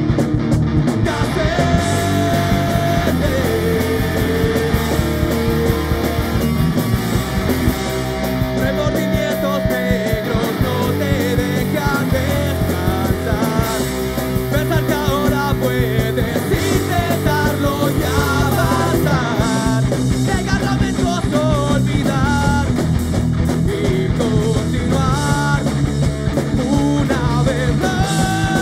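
Rock band playing live: drum kit with cymbals, electric bass and guitar, loud and continuous.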